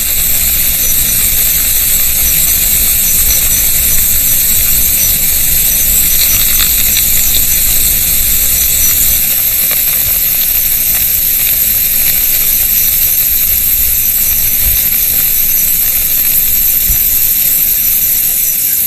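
Steady rushing hiss of a dense swarm of bats flying out through a cave, thousands of wingbeats blending into one even sound that cuts off suddenly at the end.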